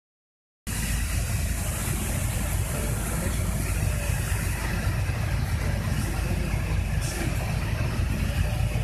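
Piper PA-28 Cherokee's single piston engine and propeller running steadily, heard from inside the cockpit. The sound cuts in abruptly just under a second in.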